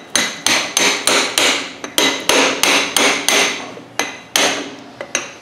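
Hammer striking a brass punch in quick repeated blows, about three a second with a short pause near the end, each hit ringing metallically. The punch is driving the outer CV joint off its axle shaft past the retaining snap ring.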